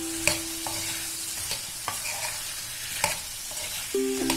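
A metal spoon stirs chopped pumpkin through fried masala in a frying pan. It scrapes and knocks against the pan several times over a light sizzle.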